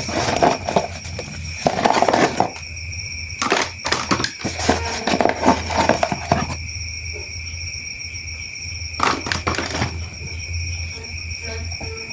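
Clicks and rattles of plastic toy train parts being handled, coming in bunches, over a steady high-pitched whine.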